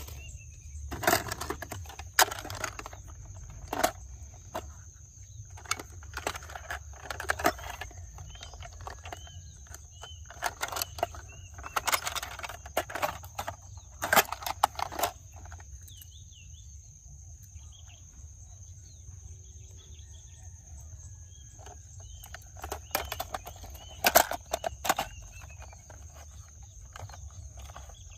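Plastic toy cars clicking and knocking irregularly as they are handled and set down, in clusters with a quieter stretch near the middle.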